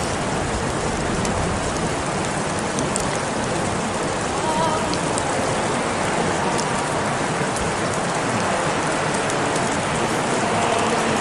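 Steady rain, an even hiss with scattered faint drop ticks.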